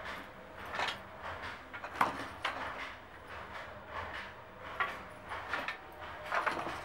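Wooden handloom at work: the batten knocking and clacking in an irregular rhythm of sharp wooden knocks, roughly one every half second to second, the loudest about two seconds in.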